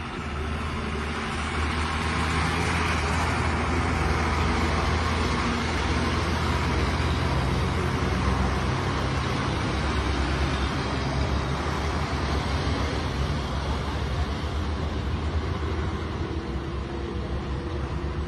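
Diesel lorries driving past one after another, a steady engine drone with tyre and road noise that grows louder about two seconds in.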